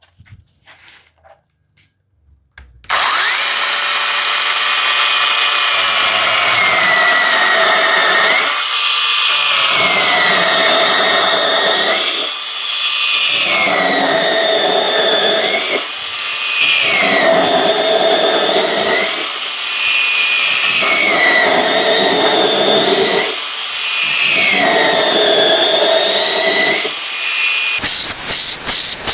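HYCHIKA CS18D 18 V brushless cordless mini chainsaw starting up a few seconds in and cutting wood. Its motor pitch sags as the chain bites into each piece and rises again as it cuts through, with short pauses between cuts every three to four seconds. Near the end it gives way to a fast pulsing sound.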